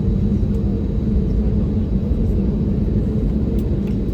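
Airbus A320neo cabin noise heard from a passenger seat: a steady low rumble of engines and airflow with a steady hum.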